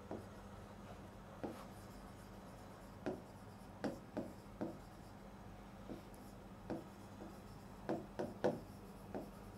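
Stylus writing on an interactive touchscreen display: faint, scattered ticks and taps as the pen tip strikes and lifts off the glass, about a dozen in all, several coming in quick succession near the end.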